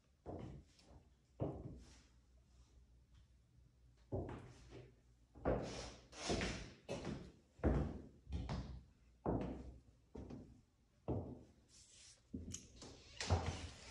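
Footsteps on a hardwood floor in an empty, unfurnished room: a dull thud roughly every second, each with a short ringing tail, coming quicker near the end.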